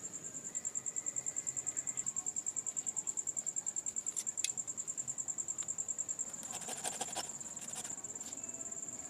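Insect trilling: a high, steady chirp pulsing several times a second without a break. A few brief clicks and rattles come about four seconds in and again near seven seconds.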